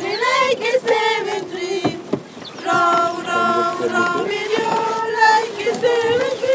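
A group of women and girls singing a song together, voices in unison on held notes, with a brief pause about two seconds in before the singing resumes.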